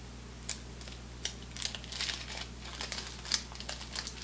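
The paper wrapper of a baseball card pack being torn open and peeled back. It crinkles in a run of short, sharp crackles that come thicker after the first second or so.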